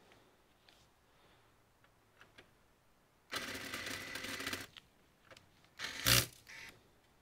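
Small hard parts and tools being handled while taking apart a computer: a few faint clicks, then a rattling clatter lasting about a second and a half, then a sharp clack and a shorter one just after.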